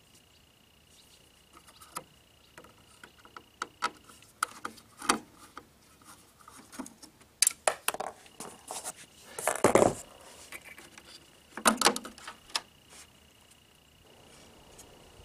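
Small clicks, rattles and rustles of hands working wires and plastic connectors on an air conditioner's control board, scattered and irregular, with louder bunches of rattling a little past halfway and again about three-quarters through.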